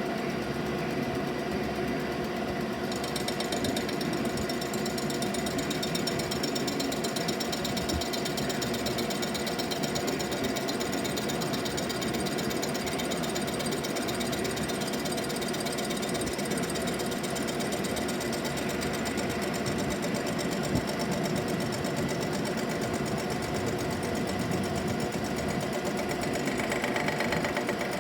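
DeVlieg machine running, its cutter machining a cast-iron exhaust manifold with a steady rapid chatter over the spindle's hum. About three seconds in, a higher-pitched ringing joins as the cut goes on, and a higher tone comes in near the end.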